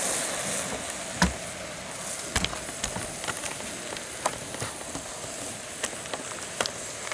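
Chicken yakitori skewers, just coated in tare, sizzling over glowing charcoal on a small mesh grill. The hiss eases about half a second in, leaving a steady low sizzle with scattered sharp pops and crackles about once a second.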